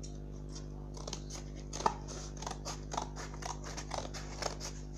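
Scissors cutting cardboard: a quick run of short snips, about five a second, starting about a second in.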